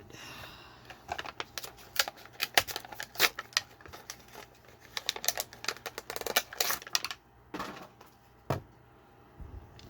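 Box packaging of a Matchbox Premiere diecast car being handled and opened to free the car: a dense run of sharp clicks and crackles that thins out to a few knocks near the end.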